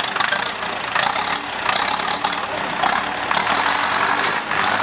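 Diesel engines of a farm tractor and an off-road 4x4 running under load as the tractor tows the stuck 4x4 out of deep mud on a chain.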